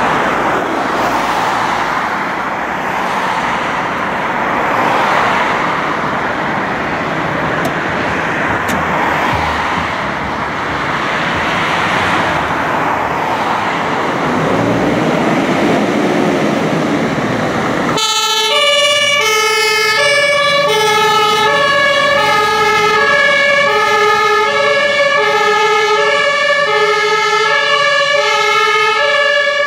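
Scania fire tanker's diesel engine running as it pulls away, with street noise. About two-thirds of the way through it gives way suddenly to the truck's two-tone siren (German Martinshorn), steadily alternating high and low notes.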